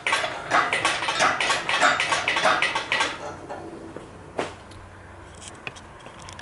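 Quick metallic clinking, about four clicks a second for roughly three seconds, then one sharp click a little over a second later; metal parts and tools being handled during an engine install.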